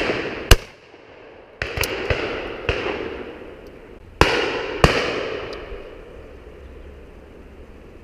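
Shotgun shots on a driven pheasant shoot, about eight in the first five seconds, each trailing off in a long echo. The two loudest, very close and sharp, come about half a second and about five seconds in; the rest are fainter and farther off.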